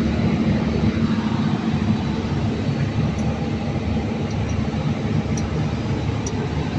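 Steady low rumble of an engine running at constant speed, with a constant hum and a few faint ticks in the second half.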